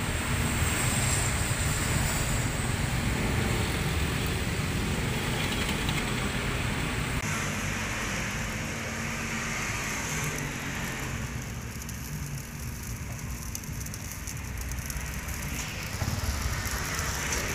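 Takoyaki batter sizzling in the takoyaki pan, under a steady rumble of passing road traffic. The background changes abruptly about seven seconds in.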